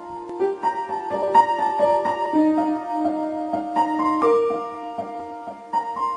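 Background music: a piano or electric-piano melody of held notes, each new note struck about every half second.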